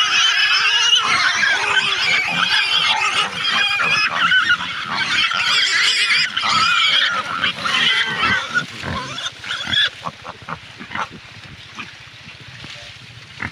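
Pigs squealing, loud, high-pitched, overlapping cries. About ten seconds in, they die down to short, quieter sounds.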